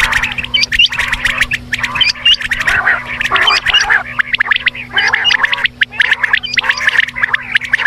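Quail calling, several at once: a dense, continuous chatter of rapid clicks and short rising chirps.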